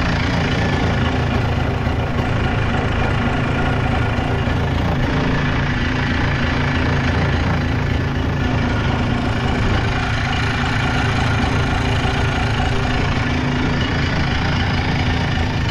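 Polaris Big Boss 250 6x6 ATV engine idling steadily.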